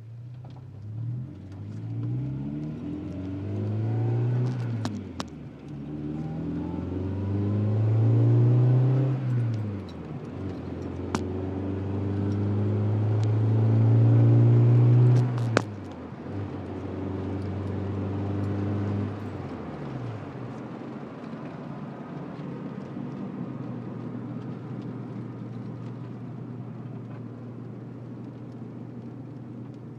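Integra's engine revving up and dropping back three times, then settling to a steady idle about two-thirds of the way through. A few sharp clunks cut through between the revs, the kind of clunk the car makes while turning, which the owner can't trace.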